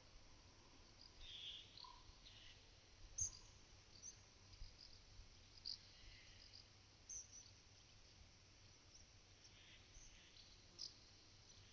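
Cattle licking a mineral salt block: soft, slightly abrasive rasps every few seconds. Small birds give short high chirps throughout, the sharpest about three seconds in.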